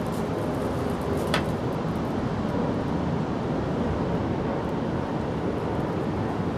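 Steady outdoor background noise, an even rumbling hiss, with one short sharp click about a second and a half in.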